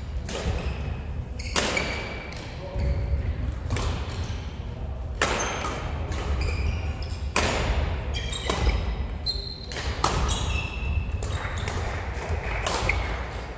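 Badminton play in a sports hall: sharp cracks of rackets hitting shuttlecocks, short squeaks of court shoes on the floor and thuds of footwork, repeating irregularly and echoing in the large hall.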